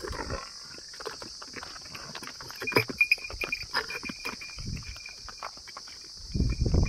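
Buffalo calves' hooves knocking and scraping on a stone slab as they step across it, irregular clip-clops over a steady drone of crickets. A louder low rushing noise comes in just before the end.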